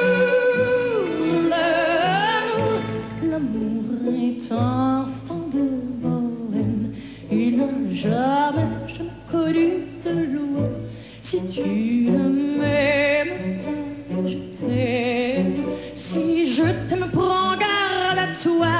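A woman singing live into a microphone with orchestral accompaniment, her voice sliding between notes and holding long notes with a wide vibrato.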